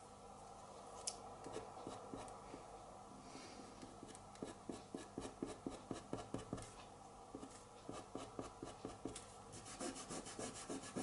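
Soft pastel being blended on paper with a tissue: faint, rhythmic rubbing strokes of about two to three a second, getting quicker near the end.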